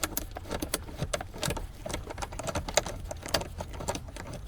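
Irregular light metallic clicks and rattles, several a second, from a hand tool and small 10 mm bolts being worked loose by hand.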